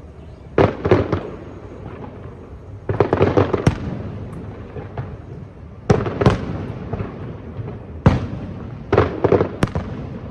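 Aerial firework shells bursting: sharp bangs in clusters of two to four, a few seconds apart, each cluster trailing off in a rumbling, crackling tail.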